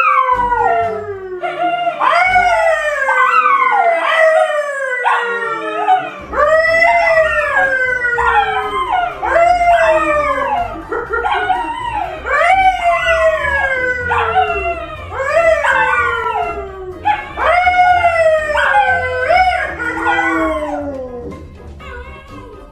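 A dog howling over and over, each howl sliding down in pitch, about one a second, until the howling stops shortly before the end.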